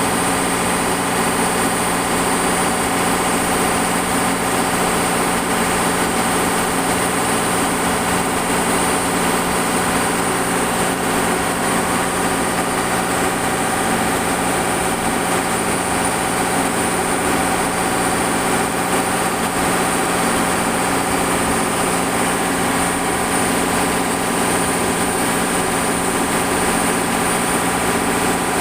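Ship's freezer and engine-room machinery running with a loud, steady drone: a constant low hum under a high hiss, unchanging throughout.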